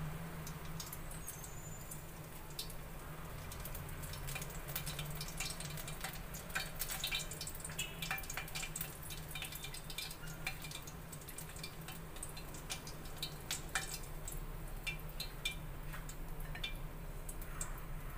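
Hot cooking oil crackling with many irregular small pops, over a steady low hum.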